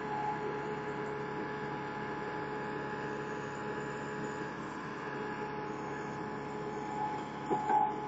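27 hp mini tracked skid steer loader with a backhoe attachment running steadily with a humming whine as it digs a trench. Near the end a few short clunks as the bucket swings out and dumps soil and stones.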